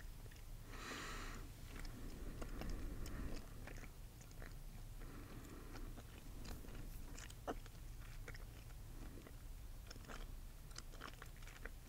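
Close-miked gum chewing: irregular wet mouth clicks and smacks, with one louder noisy rustle about a second in, over a low steady hum.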